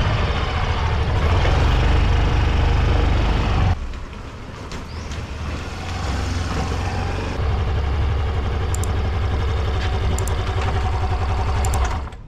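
Yamaha Grand Filano scooter being ridden on the road, with steady low engine and road noise. The sound drops away sharply about four seconds in, comes back a few seconds later and cuts off abruptly just before the end.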